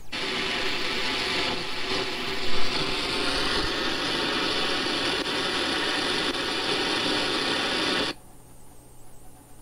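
Shortwave receiver audio from an SDR tuned to an AM broadcast signal on 6010 kHz: a weak station buried in dense static and rushing noise. About eight seconds in it drops off sharply to a much quieter hiss as the scanner leaves the frequency.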